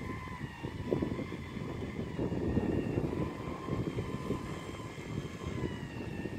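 Thin, steady high whine of small electric toy RC boat motors running on the water, wavering slightly in pitch, over a louder uneven low rumble.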